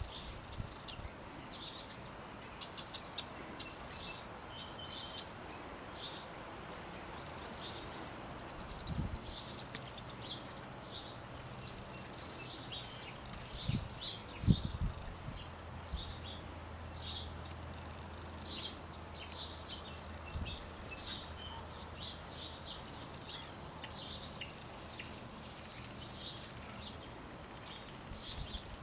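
Small songbirds chirping and twittering in quick high notes, with a few rising whistled notes. A few low thumps come around the middle, the loudest a little before halfway, and a faint low hum runs through the second half.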